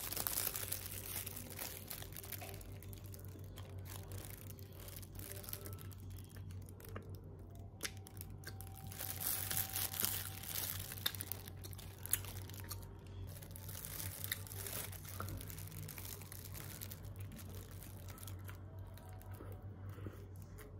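Thin plastic bakery bag crinkling around a flaky pastry as it is held and bitten, with the crisp crust crunching. The rustle is loudest at the start and again about ten seconds in.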